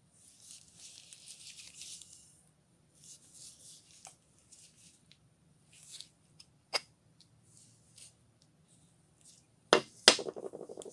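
Gloved hands rustling as they handle an old steel club hammer, with a few small clicks. Near the end come two loud knocks as the rusted hammer head and its broken wooden handle are set down on the wooden surface, followed by a short rattle that fades out.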